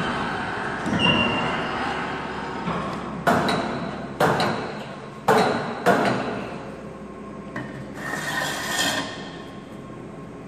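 Metal striking metal: four sharp clanks within about three seconds, starting about three seconds in, each ringing briefly, over a background din that slowly fades.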